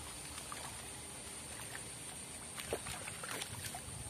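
Soft frog lure splashing and popping across the canal surface as it is retrieved, turning to a flurry of short splashes and clicks in the second half as a snakehead lunges at it near the end.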